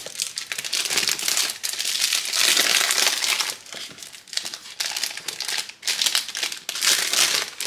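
Clear plastic shrink-wrap being peeled and pulled off a cardboard perfume box, crinkling and crackling in several bursts.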